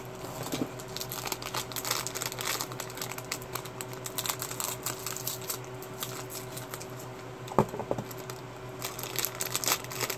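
Foil blind-bag wrapper crinkling as it is cut open with scissors and torn away: an irregular run of crackles, with one sharper click about seven and a half seconds in.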